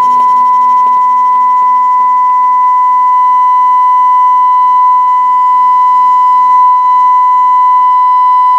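A steady single-pitch test tone from a signal generator, reproduced loud through the Hacker Sovereign RP18's transistor audio amplifier and loudspeaker. It is deafening at about 20 millivolts input but not yet clipping. A faint pulsing hum sits beneath it.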